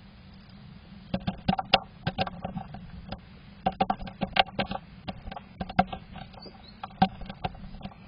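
A tit clinging at the entrance hole of a wooden birdhouse, its claws and beak making quick clusters of sharp taps and scratches on the wood. The groups come irregularly, several taps at a time, picked up close inside the box.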